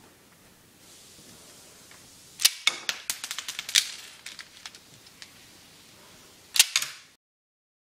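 Rubber-band-powered Lego brick-shooting pistol firing twice: a sharp snap about two and a half seconds in followed by a rattle of quick clicks, and a second snap near the end with a few smaller clicks after it.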